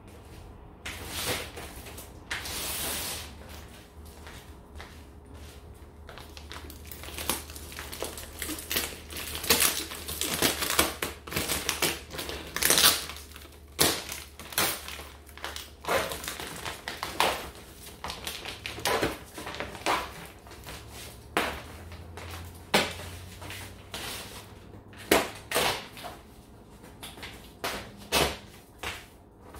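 Irregular rustling, scraping and knocking as a rug and household things are handled on the floor, in short bursts about once a second.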